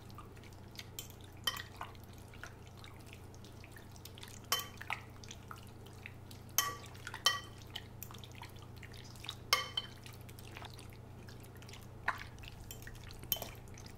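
Chicken pieces being mixed with spices in a bowl: a utensil clinks against the bowl at irregular moments, roughly one every second or two, over a faint steady low hum.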